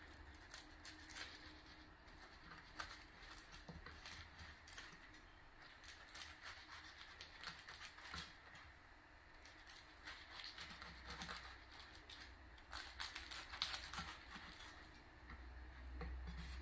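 A chef's knife slicing through crisp fried tofu-skin rolls on a wooden cutting board: faint, irregular crackling of the crust, with light taps of the blade on the board.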